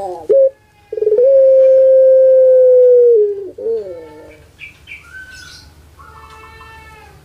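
Puter pelung dove singing its long call: a short falling note, then a loud held note of about two seconds that sags and slides down in pitch. Fainter, higher-pitched calls of other birds follow in the second half.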